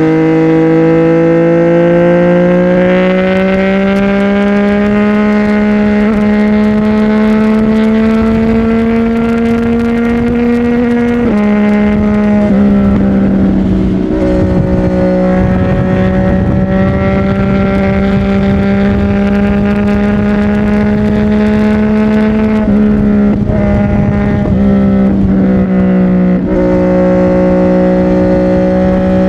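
CFMoto 675NK's three-cylinder engine through a titanium aftermarket exhaust while riding: the note climbs slowly, drops with an upshift about 11 seconds in, then holds fairly steady with smaller drops in pitch near the end.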